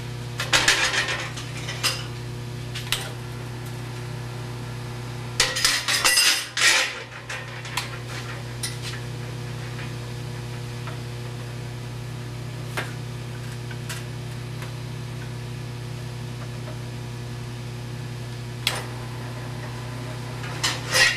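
Metal pieces clanking and clinking, in clusters near the start and around six seconds in and singly later, over a steady electrical hum.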